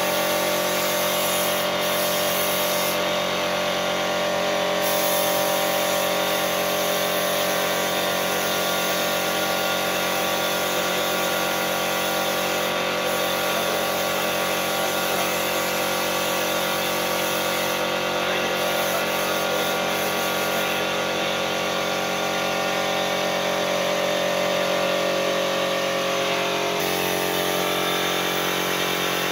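Air compressor running steadily under the hiss of a compressed-air paint spray gun spraying a door. The high hiss drops away in a few stretches, and the machine's hum shifts near the end.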